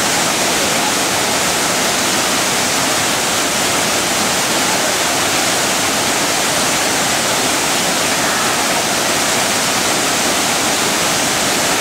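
Loud, steady rushing of a waterfall, the roar of falling water close to the microphone.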